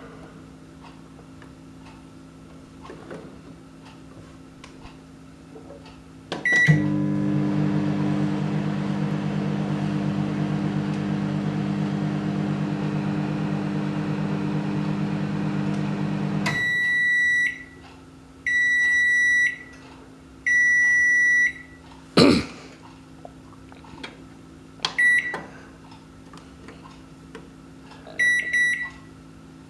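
Swan Retro 800-watt digital microwave: a short button beep, then about ten seconds of the oven running with a steady hum. The hum stops, followed by three long beeps that signal the end of the cycle, a sharp clunk, and short button beeps near the end.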